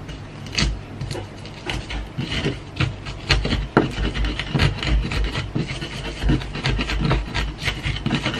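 Pestle grinding garlic with salt and seasoning in a mortar (ulekan): repeated rubbing, scraping strokes with dull knocks, about two a second, irregular.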